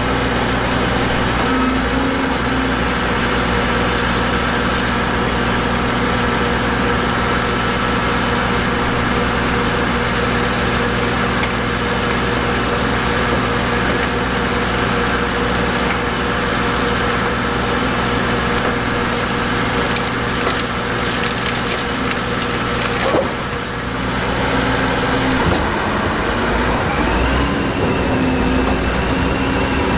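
John Deere X9 1100 combine harvesting corn: a steady engine hum under dense crackling and snapping as the corn head pulls in and breaks the stalks. The engine note shifts about 25 seconds in.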